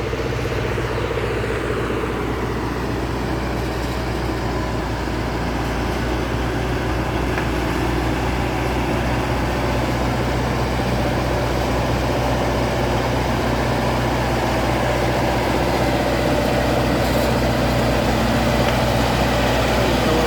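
Diesel engine of a crawler tractor running steadily, growing slowly louder.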